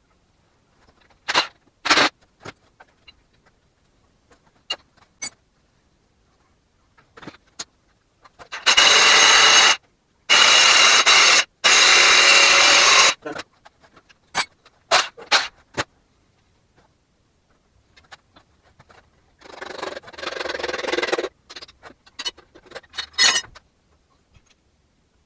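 A power tool running in loud bursts of one to two seconds, three close together about nine seconds in and one more about twenty seconds in, between sharp metal clinks and clatter from engine parts being handled.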